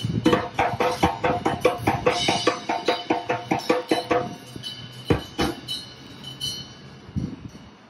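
Percussion music: a fast, even run of pitched strikes, about four or five a second, that stops about four seconds in. A few scattered strikes follow.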